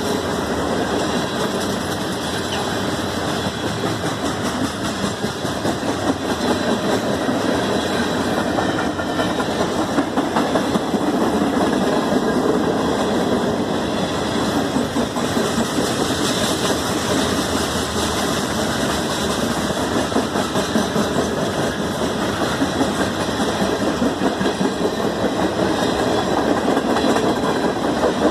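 Norfolk Southern freight train passing close by: a steady, loud rumble of rolling cars with the quick clatter of steel wheels on the rails.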